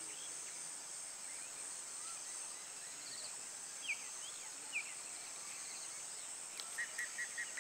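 Insects droning steadily at a high pitch, with a few short bird chirps. Near the end comes a quick run of evenly spaced chirps, about five a second.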